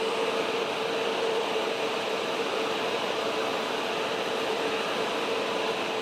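Hair dryer running steadily: an even rushing hiss with a constant hum underneath.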